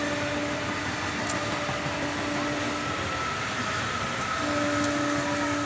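Electric local train (EMU) running past at speed, a steady rumble of wheels on rails. A steady two-note hum runs with it, dropping out about half a second in and returning near the end.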